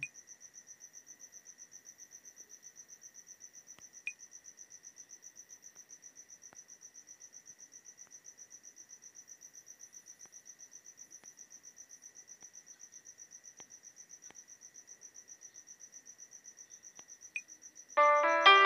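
A cricket chirping steadily in rapid, even pulses, with a few faint clicks. Near the end a phone ringtone starts playing loudly.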